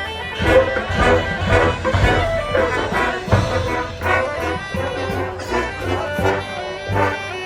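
High school marching band playing: brass section with trombones and trumpets holding sustained chords over a steady percussion beat of strokes about every half second.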